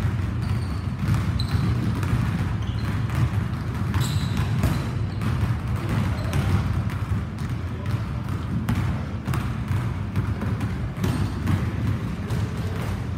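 A basketball being dribbled and bounced on a hardwood gym floor, with repeated irregular thuds and a few brief sneaker squeaks. Underneath runs a steady low hum from a large floor fan.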